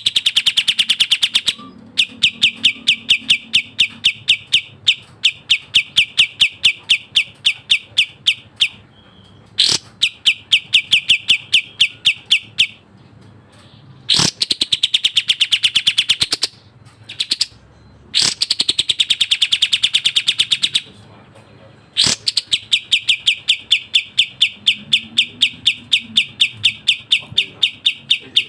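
Kapas tembak bulbul singing fast, tightly packed trills of rapidly repeated high notes, several phrases opening with a quick downward sweep, in bursts of a few seconds separated by short pauses.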